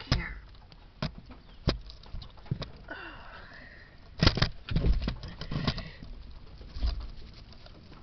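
Irregular knocks, clicks and rustles from a hand-held camera being handled and pine straw being disturbed as a hand reaches down to eggs on the ground. The loudest cluster comes about four to six seconds in.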